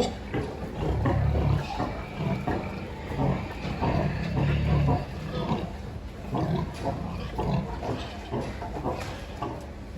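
Pigs grunting over and over in short, irregular bursts, with a low rumble twice in the first half.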